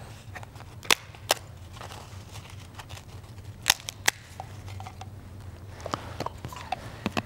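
A handful of sharp, dry snaps and clicks, the loudest two about a second in and two more near the middle, from a Communion host being broken and handled close to the altar microphone. A low steady hum runs underneath.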